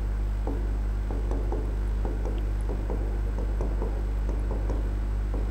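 Chalk scratching and tapping in short irregular strokes as Gurmukhi letters are written on a chalkboard, over a steady electrical mains hum.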